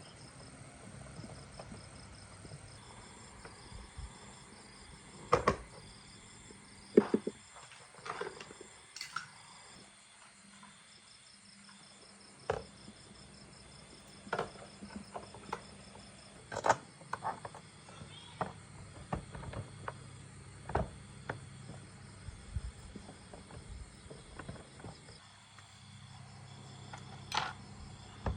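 Scattered short knocks and clinks, over a dozen, irregularly spaced, loudest about five and seven seconds in, typical of metal tools and parts being handled during motorbike repair work. A faint, steady, high-pitched chirping repeats in regular dashes underneath.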